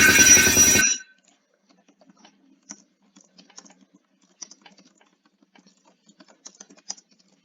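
A loud burst of noise with a steady high tone cuts off suddenly about a second in, ending an emergency alert's audio. Then come faint, scattered clicks like typing on a computer keyboard, over a low hum.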